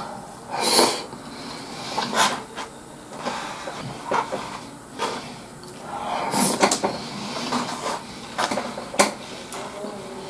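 A man eating a beef bowl with chopsticks from a plastic takeout container: irregular clicks and scrapes of the chopsticks against the container, with chewing in between.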